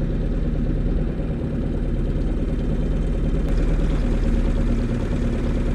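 Small outboard motor running steadily at slow trolling speed.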